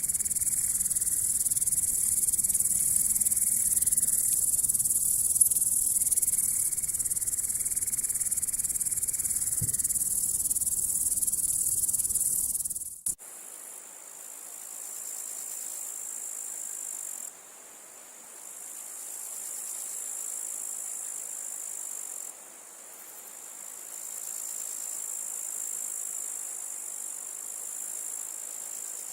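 Grasshopper stridulating: a continuous high-pitched buzzing song. About halfway through, a cut drops the low background rumble and the song goes on quieter.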